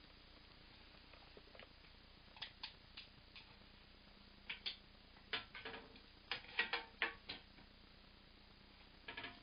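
Faint, scattered clicks and taps from handling a handheld camera while it pans, starting a couple of seconds in, thickest and loudest in the middle, with a short flurry near the end.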